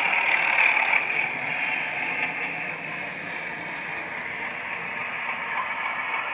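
Sound-fitted 00 gauge model class 31 diesel locomotive playing its engine sound through a small speaker, a steady, thin diesel hum that eases slightly after about a second.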